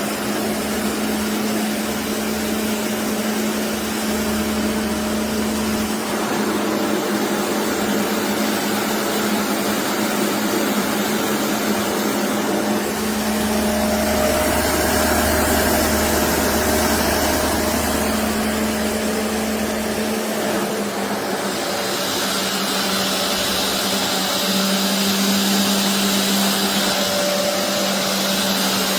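BISSELL Revolution HydroSteam carpet cleaner running, its suction motor giving a loud, steady drone with a hum under it.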